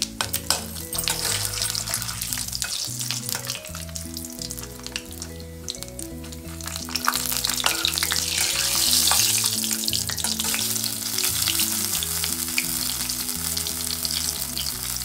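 Whole spices (bay leaf, cinnamon, cardamom, cloves and fennel seeds) sizzling in hot oil in a kadai, with a steel spatula stirring and clicking against the pan. The sizzle grows louder about seven seconds in.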